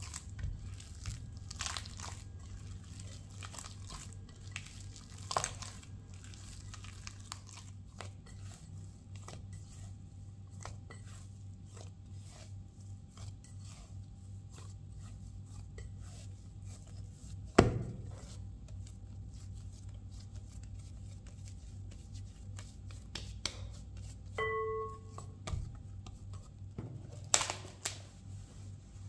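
Hands kneading a soft yeasted bread dough in a glass bowl: soft sticky squishing with small irregular knocks against the glass, one sharp knock a little past halfway, and a brief ringing clink later. Near the end a cloth tea towel rustles as it is pulled over the bowl. A steady low hum sits underneath.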